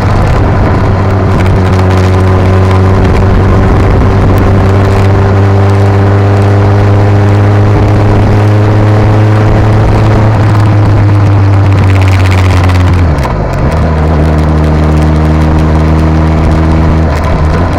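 Suzuki GSX-S1000's inline-four engine through an SC-Project aftermarket exhaust, recorded at the exhaust while riding, with wind noise on the microphone. It holds a steady, slightly climbing note, drops abruptly to a lower note about thirteen seconds in, then steps back up near the end.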